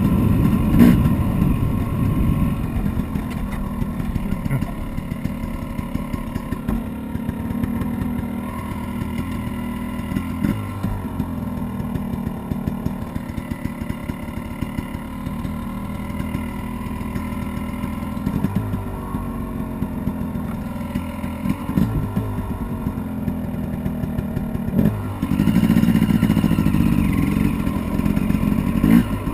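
Dirt bike engine running while being ridden, the throttle rising and falling in short spurts and opening up louder near the end.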